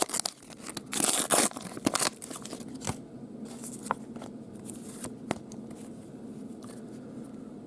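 A trading-card pack wrapper being torn open and crinkled, loudest about a second in, then quieter with a few light ticks as the cards are handled.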